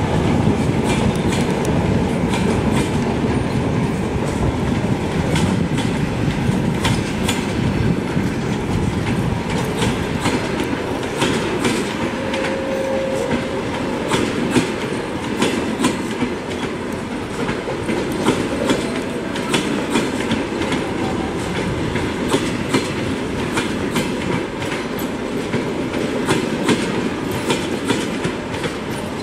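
Long-distance passenger coaches rolling past, their wheels clicking irregularly over rail joints and switches above a steady rumble.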